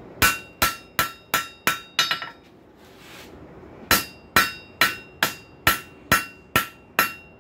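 Hand hammer striking a hot rail spike on a steel anvil, drawing it out thinner: a steady run of ringing blows, about two to three a second, with a pause of nearly two seconds partway through before the hammering resumes.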